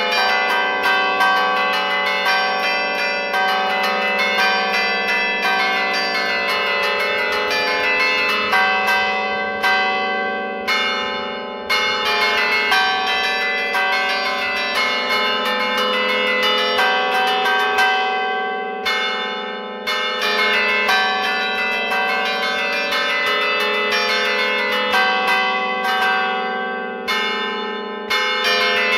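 Church bells in a tower, their clappers struck in rapid melodic patterns from a wooden lever keyboard while the bells hang still: a festive suonata d'allegrezza. The fast run of strikes breaks off briefly three times, about ten, nineteen and twenty-seven seconds in, letting the bells ring on and die away before the strikes resume.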